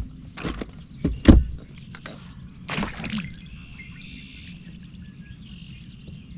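A few sharp knocks and thumps in the first second and a half, a short rushing noise about three seconds in, then birds chirping over a steady low hum.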